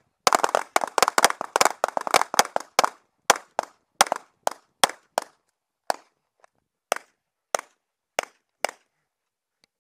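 Rapid handgun fire from several pistols: a dense run of overlapping shots for about three seconds, then thinning to single shots about half a second apart that stop near the end.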